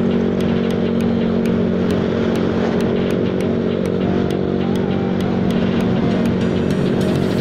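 Motor scooter engine running at a steady pitch while riding, with background music playing over it.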